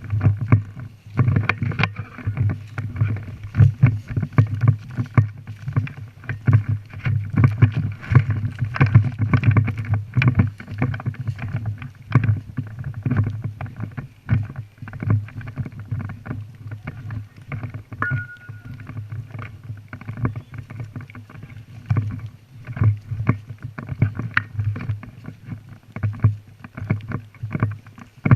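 Irregular knocks and rustling over a steady low rumble, like movement noise rubbing and bumping against a microphone.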